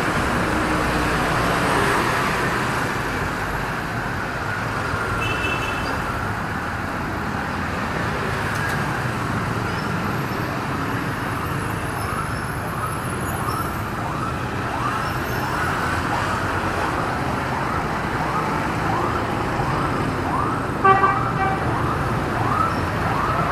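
Steady street traffic of motorbikes and cars. From about halfway an emergency-vehicle siren cycles up and down in pitch about once a second, growing louder toward the end, and a short vehicle horn toot sounds near the end.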